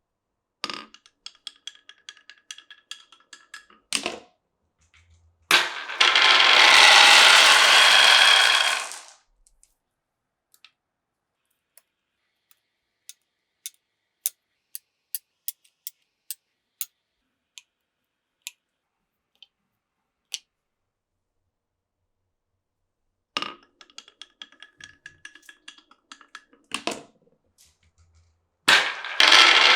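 Glass marbles running down a wooden marble run. There is a quick string of clicks with a faint ringing, then a sharp knock, then about four seconds of loud continuous rattle as a marble runs along a track section. Scattered single clicks follow, and the same clicks, knock and loud rattle come again near the end.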